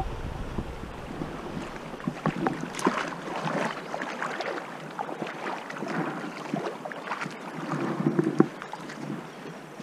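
A river running, with wind on the microphone and scattered short clicks and knocks.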